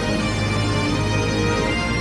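Background music with held notes over a steady low bass.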